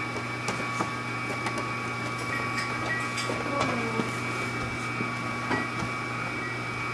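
Omega 8004 low-speed masticating juicer's motor running steadily with a constant hum, with a few faint light clicks.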